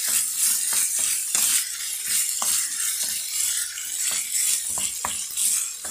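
Chicken pieces with sliced garlic sizzling in hot oil in a nonstick frying pan while being browned, stirred with a wooden spoon that scrapes and taps against the pan.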